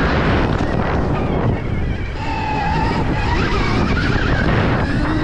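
Wind buffeting the microphone, with the thin whine of electric motocross bike motors rising and falling in pitch over it.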